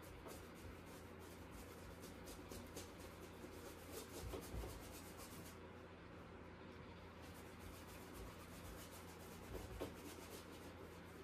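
Paintbrush bristles scrubbing across canvas in quick, faint, scratchy strokes, stopping briefly a little past halfway and then starting again. Two soft bumps come in the middle and near the end, over a low steady hum.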